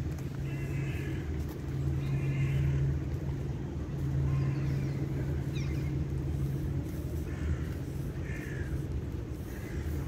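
Steady low rumble of distant city traffic, with a few short higher-pitched calls standing out from it now and then.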